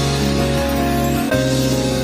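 Instrumental music with held chords that change about a second and a half in.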